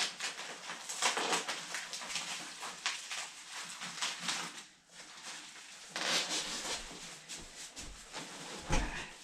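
Bike box packaging rustling and scraping in irregular bursts as a mountain bike is unpacked, with a brief lull about halfway through.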